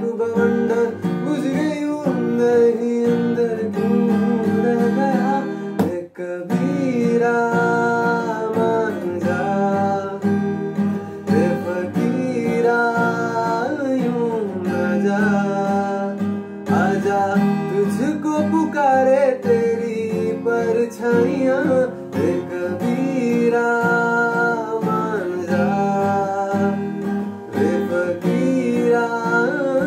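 Steel-string acoustic guitar strummed in a steady accompaniment while a man sings over it, with a brief break in the playing about six seconds in.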